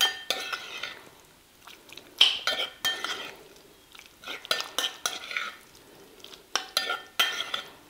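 Metal spoon stirring a thick tuna mixture in a ceramic bowl: repeated clinks and scrapes of the spoon against the bowl, coming in groups every second or two, with a short ring after the sharper hits.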